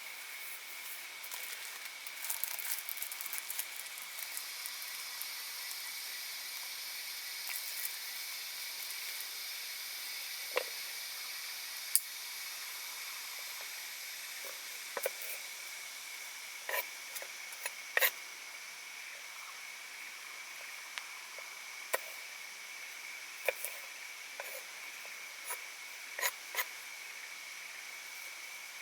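Steady, shrill insect chorus, a constant high trill with a second, higher layer for a stretch in the middle, over a faint hiss. Scattered sharp ticks and pops come and go, most of them after the middle.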